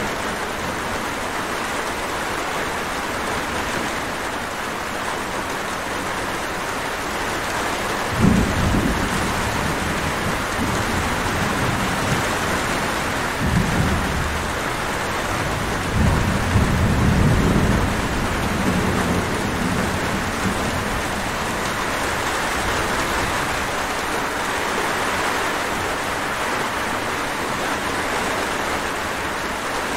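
Steady rain falling, with thunder rumbling three times: a short rumble about a quarter of the way in, another near the middle, and a longer roll soon after.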